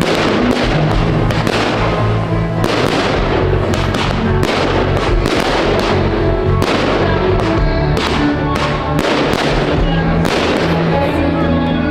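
Aerial fireworks shells bursting in quick succession, many sharp bangs and crackles at irregular intervals, over music with held bass notes.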